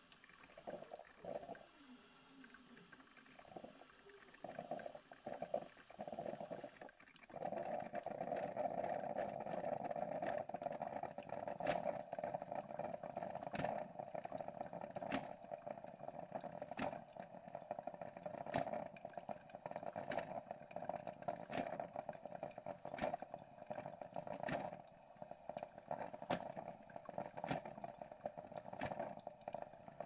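Braun Type 3104 drip coffee maker brewing: hot water spurting up through the heater tube in irregular bursts, then running continuously from about seven seconds in, with sharp clicks every second or two.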